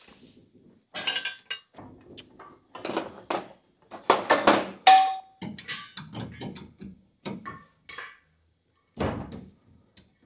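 Irregular metallic clanks and knocks as the chain and clamp hardware of a dent-pulling post are handled and fitted, with a short metallic ring about five seconds in.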